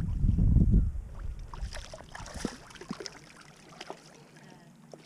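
Low wind rumble on the microphone for about the first second, then scattered splashing and crackling as a hooked channel catfish is pulled out of the water onto a bank of dry leaves, fading toward the end.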